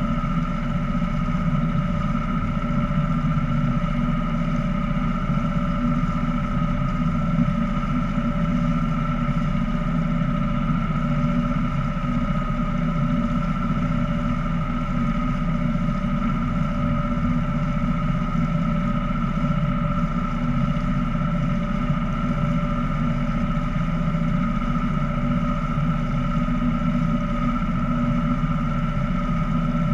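Small motorboat's engine running at a steady speed as the boat moves along, an even drone with a steady whine on top.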